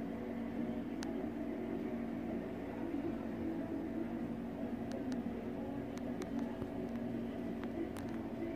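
Steady low mechanical hum with a cluster of held tones, and a few faint clicks over it.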